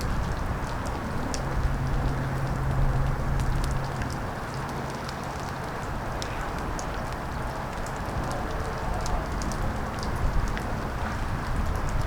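Steady rain falling, with many scattered sharp drop ticks over a rushing hiss. A low steady hum is heard under it for a few seconds near the start.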